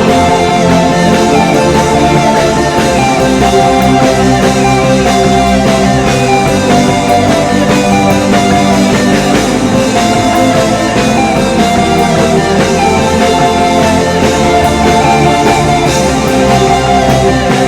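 Instrumental worship band music: steady held chords with guitar and drums, no singing.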